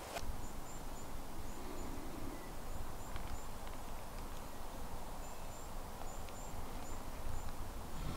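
Steady outdoor background rush with faint, very high-pitched bird chirps repeating through it.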